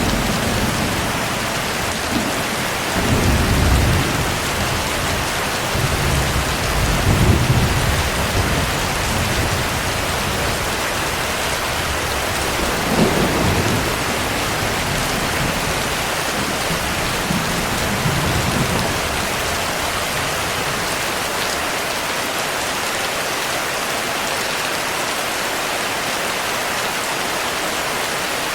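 Steady heavy rain with thunder rumbling low several times over the first twenty seconds or so, then rain alone.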